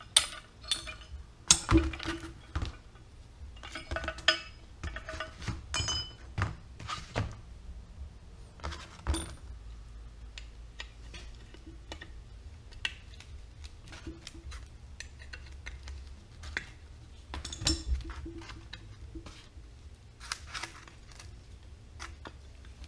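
Irregular metal-on-metal clinks and knocks of hand tools working on steel boom pulley parts during disassembly, some strikes ringing briefly, over a low steady hum.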